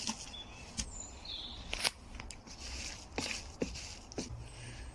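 Scattered knocks, clicks and scrapes of a flexible plastic tub trug of composted sawdust being handled and shifted beside a plastic compost bin.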